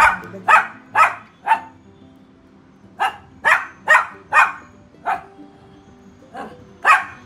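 A dog barking in three bouts of short, sharp barks, about two a second, with faint music underneath.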